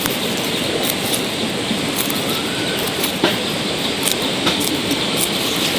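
Steady rain falling, a dense even hiss with scattered sharp ticks of drops, one louder tick a little over three seconds in.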